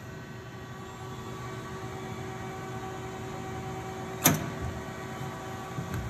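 Steady hum with faint whining tones from a powered Fanuc M710iC/50 industrial robot and its controller, with one sharp click about four seconds in and a few fainter clicks near the end.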